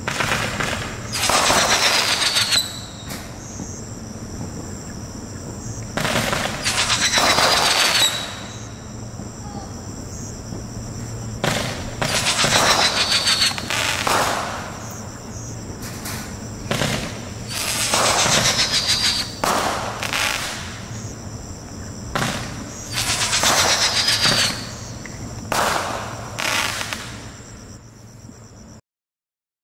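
Roman candles firing shot after shot. About six loud rushes of noise, each a second or two long with a whistle falling in pitch, come between shorter sharp pops.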